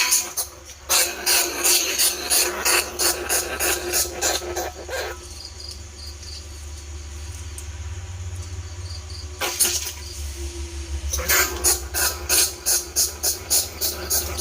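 Greater bandicoot rat squeaking in rapid trains of short, high squeaks, about three a second, in two bouts with a lull between them, over a steady low hum. This is a lure call for trapping bandicoot rats and field rats.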